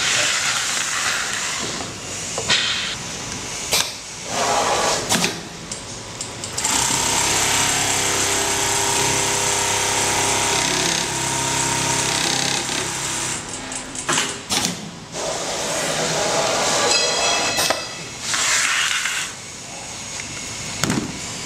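Automatic pattern sewing machine stitching along a clear plastic trouser template, a steady rapid machine sound lasting about seven seconds in the middle. Before and after come clacks, rustles and short bursts of noise from the template and fabric being handled.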